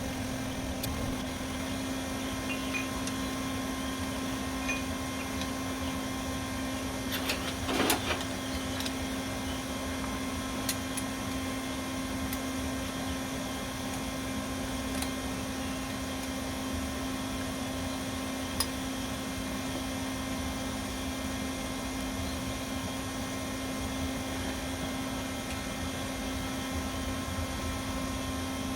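Steady mechanical hum of a running motor or fan, with a few faint clicks and a short knocking about eight seconds in.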